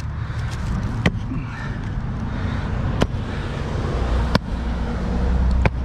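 An axe chopping into tree roots in the soil of a fence-post hole: four sharp strikes, roughly one every second and a half, over a steady low hum.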